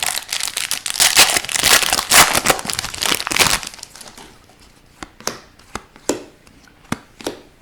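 Thin plastic crinkling as trading cards are handled and put into protection, for about three and a half seconds, then several light clicks and taps of cards being handled.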